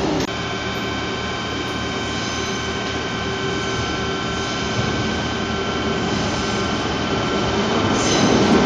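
Double-deck electric commuter train running at a station platform: a steady rumble with several steady high whining tones over it.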